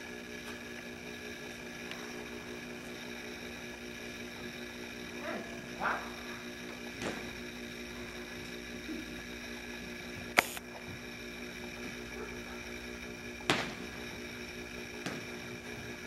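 A steady electrical hum made of several held tones, broken by a few sharp clicks, the loudest about ten seconds in and another a few seconds later.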